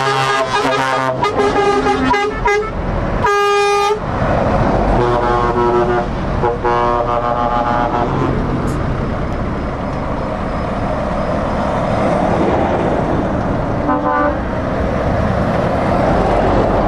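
Air horns on passing lorries sounding several times: a chord of horn tones at the start, a loud short blast about three seconds in, more tones a couple of seconds later and a brief toot near the end. Under them is the continuous rumble of truck diesel engines and tyres as the convoy drives by, swelling as a heavy truck passes close near the end.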